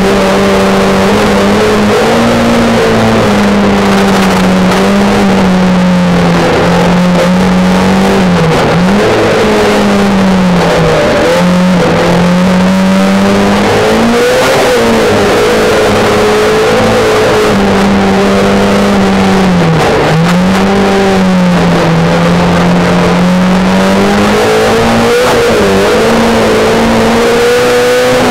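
Race car engine heard loud from inside the cabin, held at high revs. Its note drops sharply and climbs back again several times.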